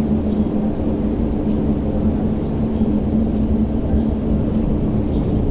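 MTR metro train running in alongside the platform behind the platform screen doors: a loud, steady low rumble with two steady hum tones, one of which drops out near the end.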